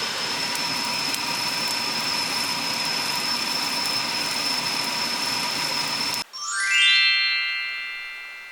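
Food sizzling as it fries in a pan, a steady hiss that cuts off suddenly about six seconds in. A quick rising run of bright chime notes then rings out and fades.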